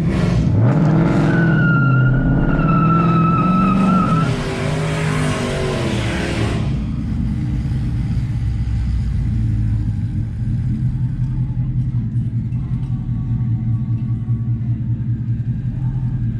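Car engine revved hard for about six seconds, with a high whine over it and tyre squeal near the end of the revving. It then drops back to a steady low idle.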